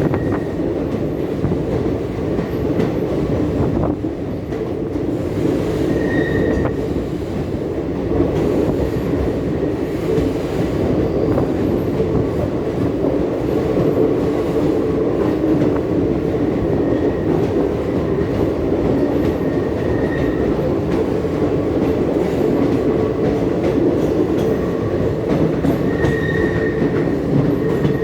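Passenger train running along the track: a steady rumble and clatter of wheels on rails, with brief high wheel squeals a few times, about six seconds in, around twenty seconds and near the end.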